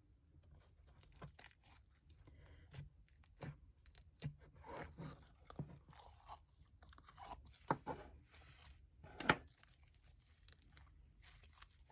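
Hands squishing and kneading a soft, creamy slime with Fimo clay pieces mixed in, giving irregular small crackles, clicks and squelches, with a couple of louder pops toward the later part.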